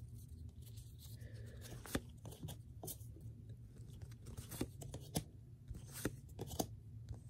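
Magic: The Gathering trading cards being slid one at a time off the front of a freshly opened pack stack, a short soft flick every half second to a second.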